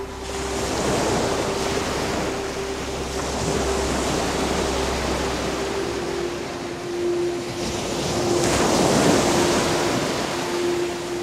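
A surf-like rush that swells and ebbs in slow waves, with a steady held tone beneath it that steps slightly lower about six seconds in.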